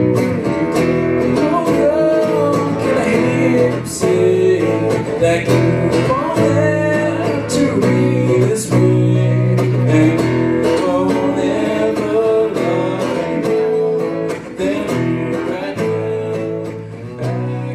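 Live acoustic band: a man singing a love song into a microphone over strummed acoustic guitar and electric bass guitar, with a steady low bass line.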